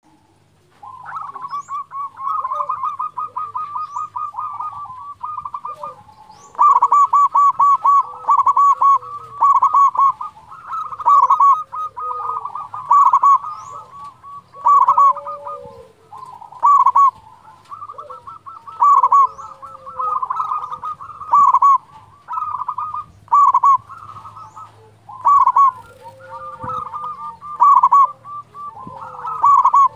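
Zebra dove (perkutut) cooing: its song of rapid, staccato trilled coos with lower sliding notes. The bouts repeat every couple of seconds and grow louder from about six seconds in.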